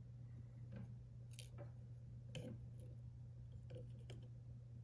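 Faint, scattered small clicks and taps of tools against tiny lock pins, springs and the brass core of a deadbolt cylinder being taken apart, about six in all, over a steady low hum.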